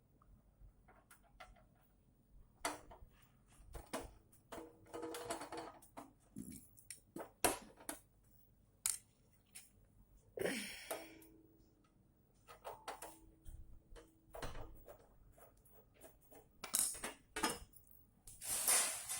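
Intermittent clicks, taps and scrapes of tools and metal parts being handled while an amplifier is taken apart, with a few longer rustling scrapes.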